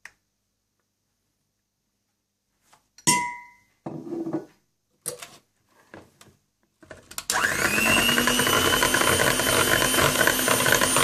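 Electric hand mixer switching on about seven seconds in, rising briefly in pitch, then running steadily as it beats egg yolks in a plastic bowl. Earlier there is a single sharp clink with a short ring and a few faint knocks of dishes being handled.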